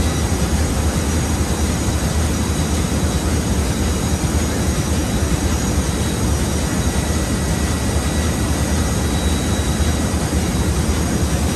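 Steady drone of running ship's engine-room machinery: a heavy low hum under an even roar, with a few faint steady whines above it.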